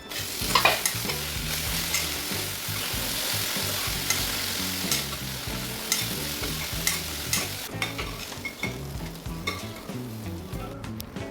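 Food sizzling as it fries in a pan, with scattered clicks of stirring. The sizzle dies away about eight seconds in.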